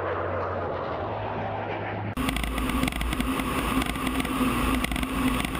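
F-16 jet noise heard from outside the aircraft, swelling up over the first second. About two seconds in it cuts abruptly to the sound inside the F-16's cockpit in flight: a steady, loud rush of engine and airflow with a constant low hum.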